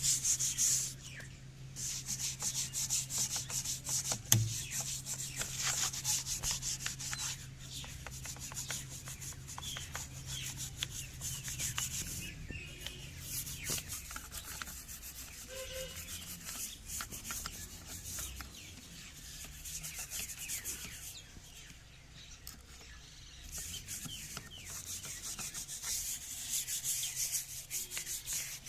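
Scrubbing and rubbing on the parts of a sewing machine being cleaned and serviced, in bursts, with scattered small clicks and taps. A low steady hum runs under the first half and stops about halfway through.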